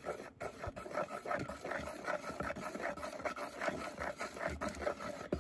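Wooden spatula stirring thin pancake batter in a ceramic bowl, scraping against the bowl's sides and bottom in a continuous run of quick rubbing strokes.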